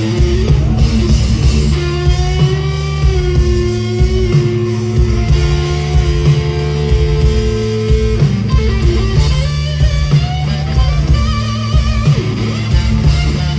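Rock band playing an instrumental passage: electric guitar carries long held notes, wavering in pitch near the end, over bass and a steady drum beat.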